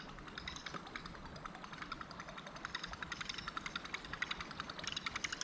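A fishing reel being cranked to retrieve a lure makes a fast, steady run of small mechanical clicks. The clicking grows louder near the end.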